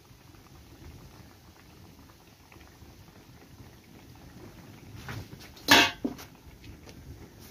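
Khajor dough frying in hot oil in a wok over a wood fire, a faint steady bubbling sizzle. About six seconds in comes one loud sharp knock, followed by a smaller one.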